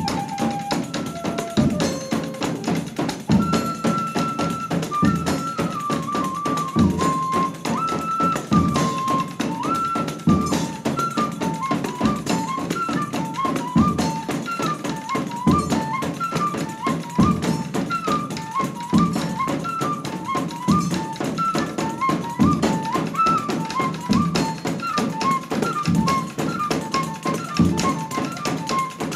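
Pífano (cane fife) playing a stepwise melody over a Northeast Brazilian reisado percussion ensemble of zabumba bass drums, caixa snare drums, triangle and hand cymbal beating a steady rhythm. The fife moves from long held notes into quicker phrases about ten seconds in.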